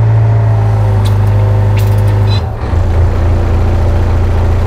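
Yanmar mini excavator's diesel engine running at raised throttle, a loud steady hum whose pitch drops about halfway through. A few faint short clicks are heard just before the drop.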